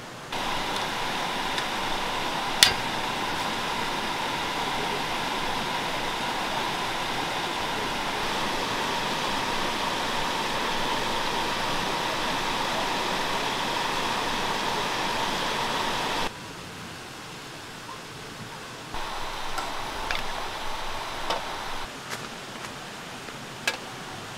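A steady rushing hiss with a faint whistle-like tone, and one sharp click about two and a half seconds in, stops suddenly about sixteen seconds in. After that it is quieter, with light clinks and scrapes of a ladle and metal cup against an aluminium camping pot, and another click near the end.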